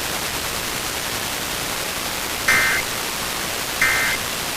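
Emergency Alert System end-of-message signal: short bursts of the SAME digital data tones, one about halfway through and another near the end, each lasting about a third of a second, over a steady hiss of radio static. These bursts close the test alert that has just been read.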